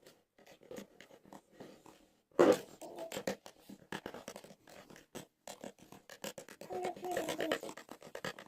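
Homemade slime being handled and mixed: a run of irregular small clicks, with one much louder thump about two and a half seconds in.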